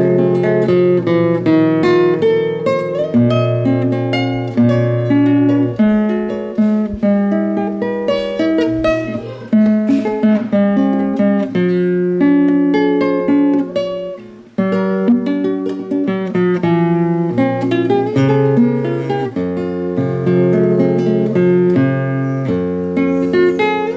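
A 1988 José Ramírez 1A nylon-string classical guitar played solo, plucked chords and melody over ringing bass notes, with a brief pause about halfway through.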